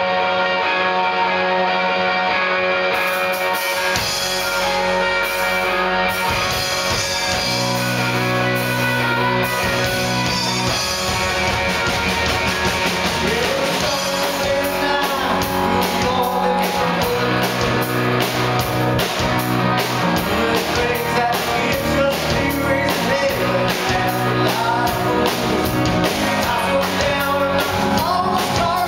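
A live rock band playing: electric guitars, bass and drum kit, with a violin on stage. The song builds from guitar alone. Drums come in about three seconds in, bass notes a few seconds later, and a man sings from about halfway.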